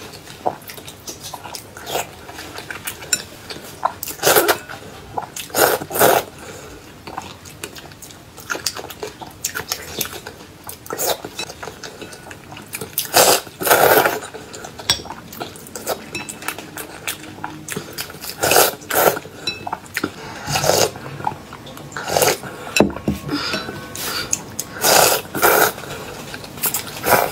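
Close-up eating sounds: noodles slurped in repeated short pulls with chewing between them, and chopsticks clinking against the bowl now and then.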